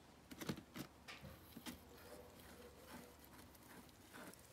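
A cat chewing a piece of pizza in a cardboard pizza box: faint, quick clicks and smacks in the first couple of seconds, then softer, scattered ones.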